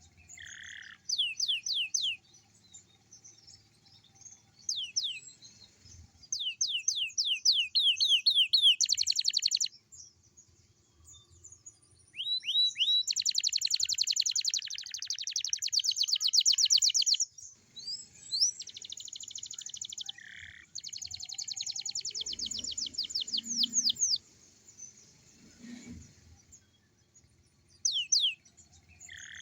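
Young canary singing in fast trills of high, falling notes. The notes come in bursts of a few seconds, separated by short pauses.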